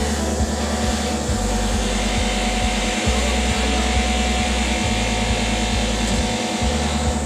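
Steady machinery drone with an even pulsing hum, mixed with low gusts of wind buffeting the microphone.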